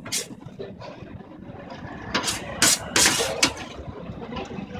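Chopped shawarma meat being scraped and dropped onto a flatbread, with a few short, loud scraping clatters about two to three seconds in, over a steady low background rumble.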